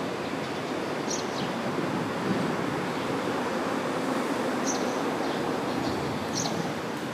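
Steady outdoor background rush, like wind or distant traffic, with three short high chirps about a second in, past the middle and near the end.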